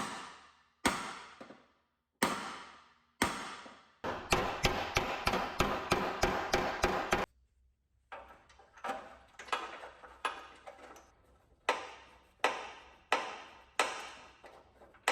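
Hammer blows on metal, each ringing briefly: three spaced strikes, then a quick run of about four a second that stops abruptly, then steadier blows about twice a second.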